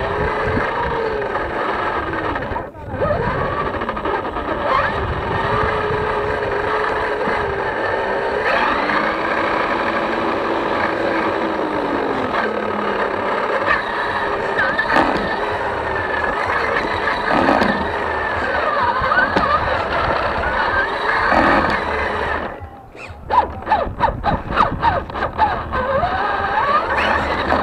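RC rock crawler's motor and gears whining as it drives, the pitch rising and falling with the throttle over the rumble of tyres on tarmac. About 22 seconds in, the whine drops out, then comes back in short choppy bursts with knocks and scrapes.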